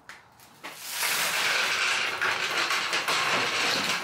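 Steel exhaust system being pulled out from under the car, a steady grating scrape of metal dragging with a few knocks, starting about a second in.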